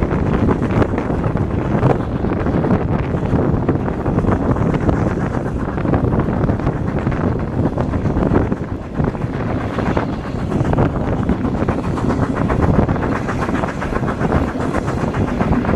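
Steam-hauled passenger train running, heard from an open carriage window: the steady rumble and clatter of the coaches on the rails, with wind buffeting the microphone.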